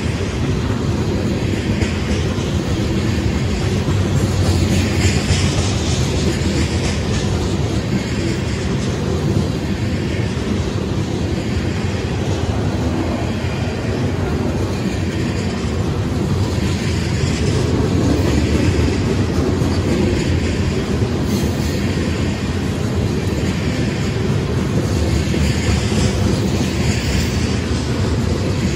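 Covered hopper cars of a freight train rolling past close by: a steady rumble and clatter of steel wheels on rail joints that swells every few seconds as the cars' wheel sets go by.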